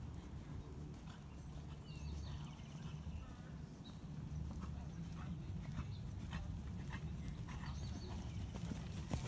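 Hoofbeats of an Oldenburg mare moving under saddle on a sand arena: soft, muffled thuds, growing louder and sharper near the end as the horse comes close.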